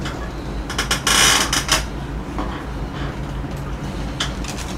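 Handling noises: a few sharp clicks, then a brief crinkly rustle of a plastic carrier bag about a second in, followed by scattered small clicks and creaks over a low steady hum.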